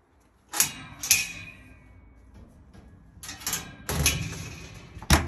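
Metal-barred kennel gate and its sliding latch bar clanking as they are worked. There are sharp metallic knocks about half a second and a second in, the second ringing on briefly. More knocks and a rattle follow around three to four seconds in, and a sharp clack comes near the end.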